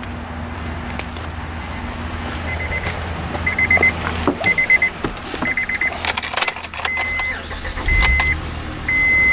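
A Honda pickup's dashboard chime beeping at one high pitch, first in short groups of quick pulses, then from about seven seconds as longer single beeps about once a second. Keys jangle about six seconds in, over a low steady hum.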